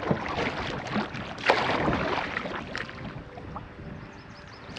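Canoe being paddled: a paddle splashing and pulling through the water, with scattered small clicks and knocks, and one stronger splash-like stroke about a second and a half in.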